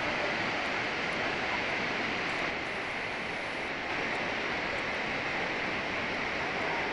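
Steady rushing of white water pouring down the Itaipu Dam's concrete spillway chute, dipping slightly for about a second midway.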